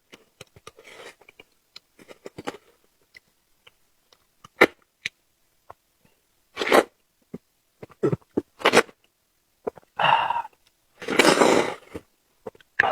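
Close-up eating sounds: wet chewing clicks and lip smacks, broken by several louder breathy puffs, the longest near the end.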